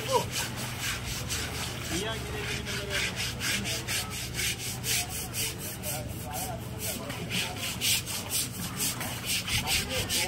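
Rhythmic scrubbing of an elephant's hide during its bath, about three or four rasping strokes a second.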